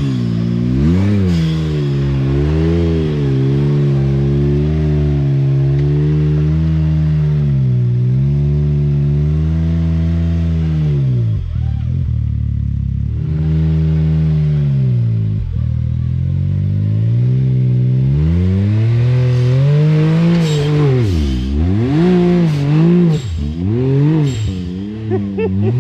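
Side-by-side UTV engine revving hard and unevenly under load as it works up a steep, slick obstacle. The revs climb and fall again and again, ease off about halfway through, then swing up and down quickly in short blips near the end.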